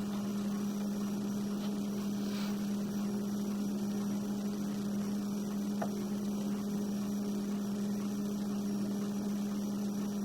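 Steady electrical hum, one low tone with fainter higher tones above it, holding level without change.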